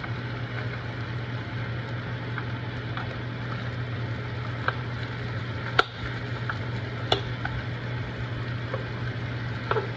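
Spiny dogfish fillets sizzling in butter in a nonstick frying pan on medium heat, with a knife scraping across the pan as it moves the butter around, giving a few sharp clicks, the loudest about six seconds in. A steady low hum runs underneath.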